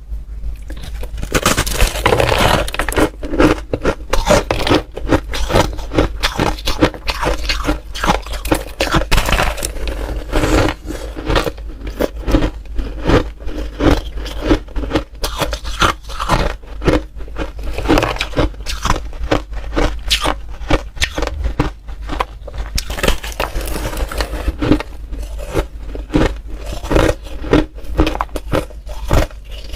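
Crunchy ice being bitten and chewed: a steady, irregular run of sharp crunches and crackles with no pauses.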